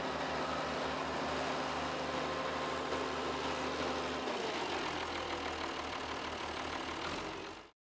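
A large four-wheel-drive farm tractor's diesel engine running as it drives over chopped grass, packing silage in a bunker silo. The engine note shifts about four seconds in, and the sound cuts off abruptly near the end.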